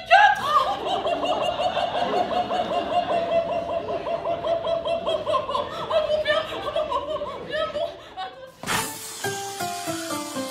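A fast, laugh-like warbling trill held around one pitch for several seconds, opening with a few upward swoops, from a comic musical stage act. Near the end it cuts to plucked string music.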